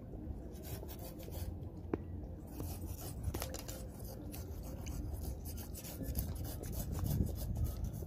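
Scales being scraped off a freshly caught fish: many short, irregular scraping strokes.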